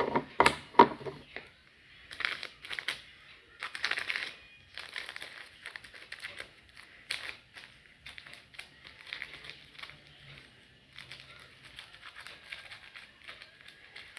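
Irregular crinkling and rustling as a small red package is handled in the hands, with a few louder crackles in the first second.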